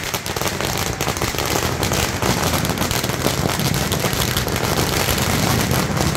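Firecrackers in a burning Ravana effigy going off in a dense, continuous crackle of rapid small bangs.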